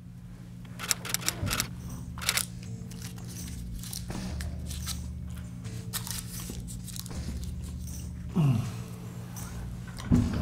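Steady low electrical hum with irregular crunchy clicks and crackles, and a short falling squeak about eight seconds in.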